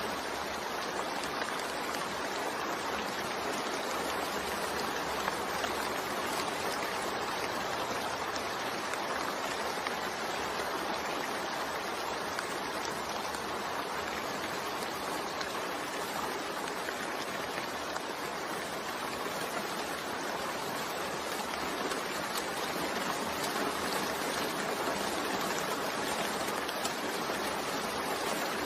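Continuous rain mixed with white noise: a steady, even hiss with no breaks or separate events.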